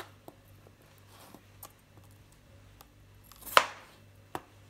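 Chef's knife slicing through raw peeled potatoes and knocking on a cutting board: a few light taps, then one loud chop about three and a half seconds in and a smaller one shortly after.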